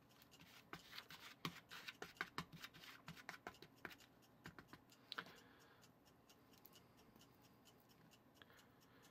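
Faint, rapid clicks and scrapes of a small metal whisk stirring stiff butter and powdered sugar in a plastic bowl. They stop about five seconds in.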